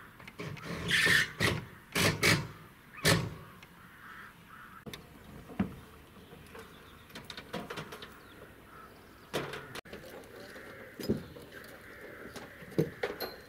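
Scattered knocks, clanks and clicks of metal as solar panels and their mounting clamps are handled and fitted on a corrugated metal roof, with a run of louder knocks in the first three seconds.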